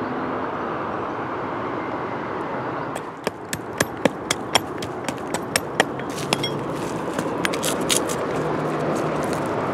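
Hand digging tool striking and scraping in stony soil. A run of sharp, irregular clicks and scrapes starts about three seconds in and lasts some four seconds, over a steady background noise.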